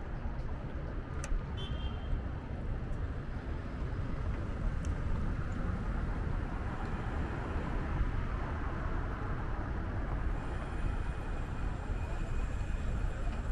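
City street traffic: motor vehicles running past, with a steady low rumble and a faint high whine in the last few seconds.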